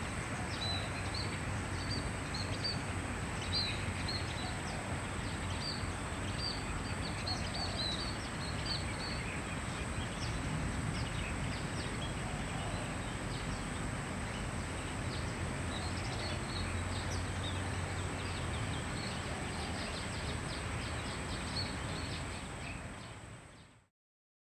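Scaly-breasted munia giving short, high chirping calls in scattered runs, over a steady high whine and a low background rumble. The sound fades out near the end.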